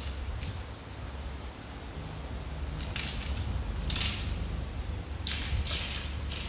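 Fishing rods being handled: a few short clicks and scrapes over a low steady hum.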